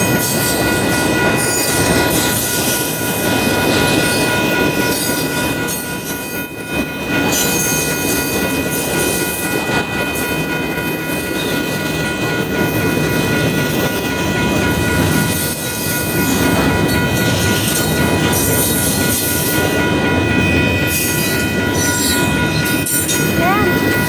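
Union Pacific double-stack container freight train rolling past at close range: a steady rumble and clatter of the well cars' wheels on the rails, with a thin, steady high squeal of wheels against the rails running through it.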